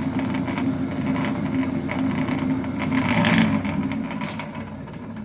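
Clausing 4914 metal lathe running in reverse in back gear, its motor and gear train turning with a steady whir, then slowing and fading over the last second or two as it winds down.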